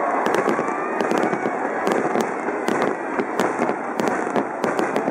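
Aerial firework shells bursting overhead in quick succession: a steady stream of sharp bangs, several a second, over a continuous noisy wash.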